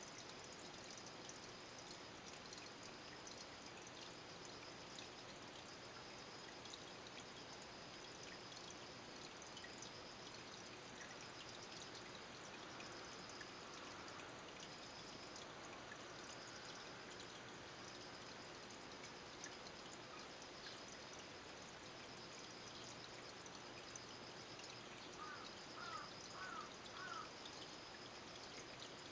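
Faint, steady trickle of water from an aquarium filter running in the tank. Near the end come three short, quick chirps.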